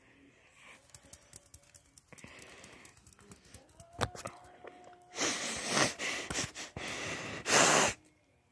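Scattered clicks and handling noise, then, from about five seconds in, several loud breathy, rushing bursts right against the microphone, the loudest just before the end.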